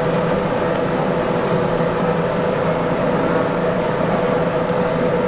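Steady mechanical hum with a constant mid-pitched tone, with a few faint clicks near the end.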